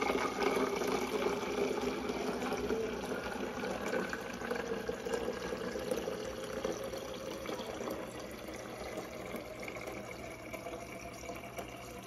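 Water from a KitchenAid refrigerator's door dispenser running in a steady stream into a plastic sports bottle, filling it on the automatic Favorite Fill setting. The splashing grows gradually quieter as the bottle fills.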